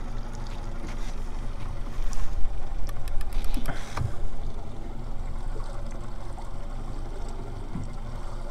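Steady low hum of a motor on a small fishing boat, with a quick run of clicks and a knock about three to four seconds in.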